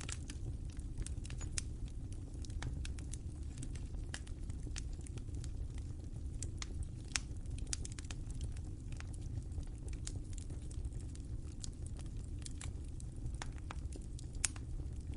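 Fire crackling: a steady low rush of flames under irregular sharp crackles and pops, with two louder pops, one about halfway through and one near the end.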